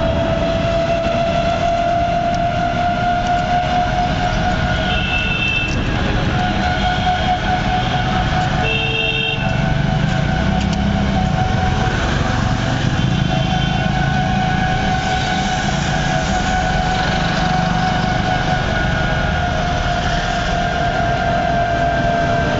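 City traffic heard from a moving vehicle: steady road and motor noise with a sustained whine, and several short horn beeps from passing traffic.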